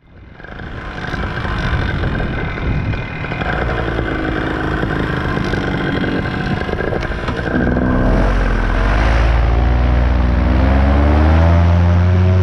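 Paramotor engine running, mixed with rushing wind, as the wing comes overhead. About eight seconds in it is throttled up for the launch: its pitch rises and it gets louder.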